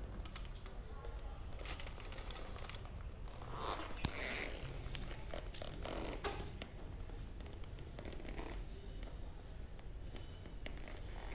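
Quiet small-room tone with a few sharp, faint clicks and light handling noises.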